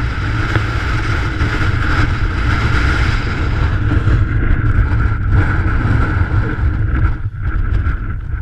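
Strong wind buffeting the microphone on an exposed mountain ridge, a loud continuous rumble with a steady hiss over it, easing slightly near the end.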